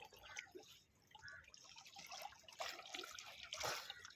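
Faint, irregular water sounds: small splashes, drips and trickling at the surface of the sea, with a slightly louder splash near the end.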